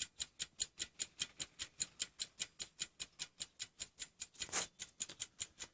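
Lever platform escapement of a French two-train carriage clock movement ticking, a quick, even beat of about five ticks a second. A brief soft rustle about four and a half seconds in.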